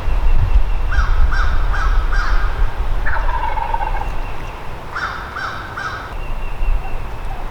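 Wild turkey calling: a run of four short, evenly spaced notes, a lower drawn-out note, then three more short notes, over a steady low rumble.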